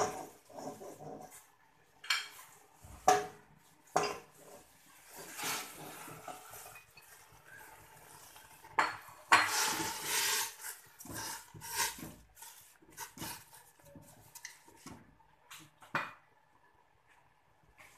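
Cassava leaves going into a stainless steel pot of boiling water to be blanched, with irregular knocks and clatter of a bowl and utensil against the pot. Two longer stretches of rustling and stirring come around a third and halfway in, and it turns quieter near the end.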